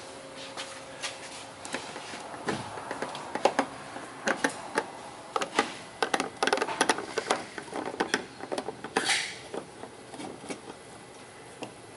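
Irregular small clicks and taps as a fuel line and its fittings are handled and fitted to an inline fuel filter under a car, with a brief brushing rustle about nine seconds in.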